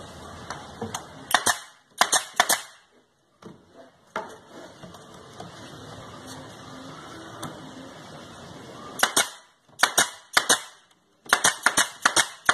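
Pneumatic nailer firing nails into pine boards: sharp cracking shots, some single, most in quick runs of two to six, with a pause of several seconds in the middle.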